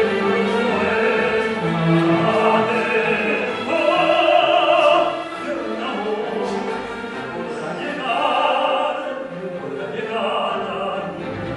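A man singing in operatic style, holding several long notes, over orchestral accompaniment.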